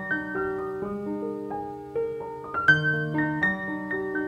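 Background piano music: a gentle melody of single notes over sustained lower notes.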